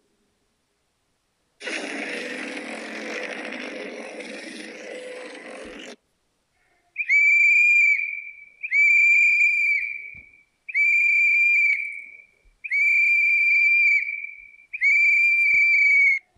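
Edited creature sound effects: a loud breathy hiss with a steady low hum underneath for about four seconds, then five identical high, steady whistle-like calls, each about a second and a half long, separated by short silences.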